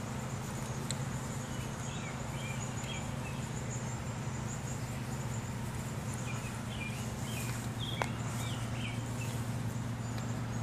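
Outdoor ambience: a steady low hum throughout, with small birds chirping in short phrases twice and a faint steady high insect drone. A single sharp click about eight seconds in.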